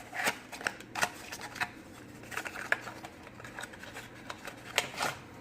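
Small product packaging being handled and opened by hand: irregular rustling, crinkling and sharp clicks, loudest about a second in and near the end.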